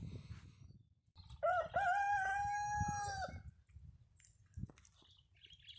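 A rooster crowing once: one call of about two seconds that rises at the start and then holds steady.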